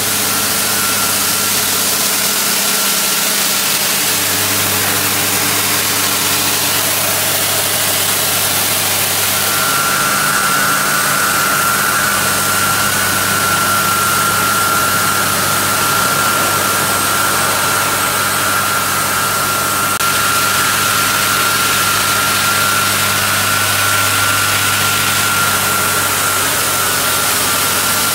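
1994 Ingersoll-Rand T3W truck-mounted water-well drill rig running steadily at its controls, with a high whine that gets louder about ten seconds in.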